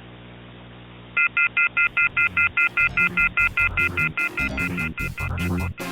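Telephone receiver off-hook warning tone: a shrill chord of several high tones beeping on and off about five times a second, heard through a narrow telephone-line sound. It is the signal of a handset left off the hook after the call has ended. It starts about a second in and stops just before the end, while music fades in under it from about two seconds in.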